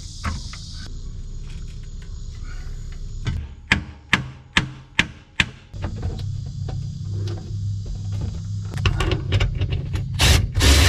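A run of sharp knocks, about seven in quick even succession around the middle and a few more near the end, from work on the skid steer's bottom plate, over a low steady hum.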